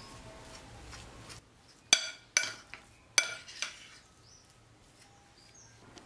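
Metal spoon stirring mashed potato dough in a glass bowl, scraping softly at first, then clinking sharply against the glass four times between about two and four seconds in.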